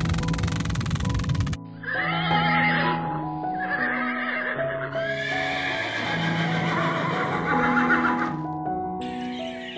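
Horse whinnying three times over gentle background music, the last call long. Before the calls, a dense hiss cuts off suddenly.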